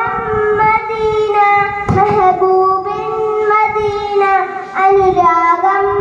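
A boy singing solo into a microphone, drawing out long, wavering held notes with short melodic turns between them.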